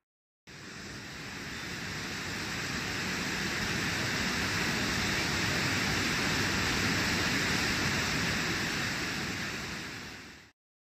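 Mountain stream rushing white over boulders, a steady wash of water noise. It starts about half a second in, swells over the first few seconds, and stops abruptly just before the end.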